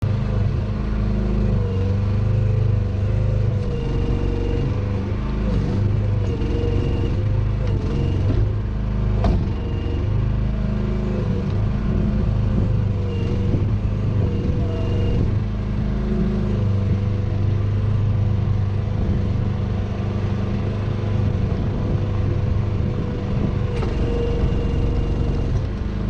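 Mini excavator's diesel engine running steadily under hydraulic load, with a whine that wavers in pitch as the controls are worked. Two sharp knocks come through, about nine seconds in and near the end.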